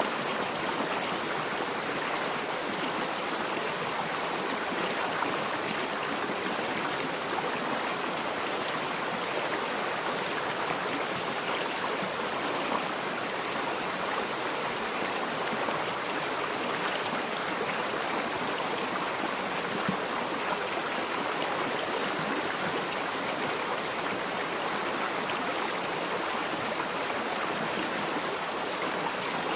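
Forest river flowing, a steady rushing and babbling of water over stones.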